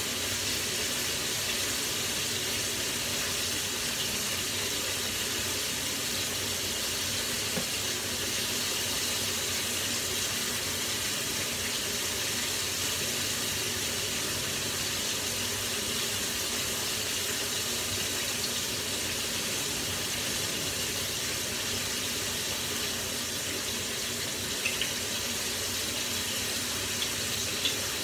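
Chicken frying in hot oil in a pan: a steady sizzle, with a few light clicks near the end.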